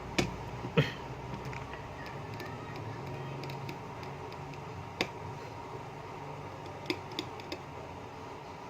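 Scattered sharp clicks and taps of small repair tools and plastic parts while a smartphone is taken apart: two near the start, the second the loudest, one about halfway, and three quick ones near the end, over a faint steady hum.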